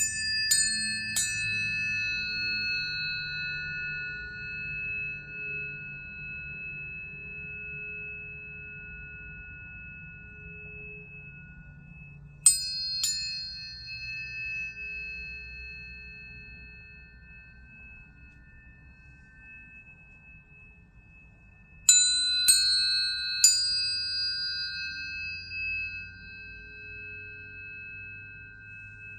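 Tuning forks struck and left ringing, several pure high tones sounding together and slowly dying away. There are three quick strikes at the start, another about twelve seconds in, and three more a little over twenty seconds in.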